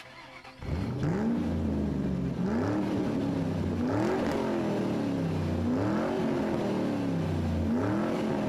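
Car engine revved again and again, starting about half a second in, its pitch climbing and falling back about every one and a half to two seconds.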